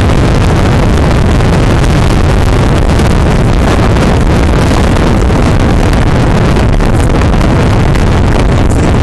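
Strong storm wind buffeting the microphone: a loud, steady rush of noise.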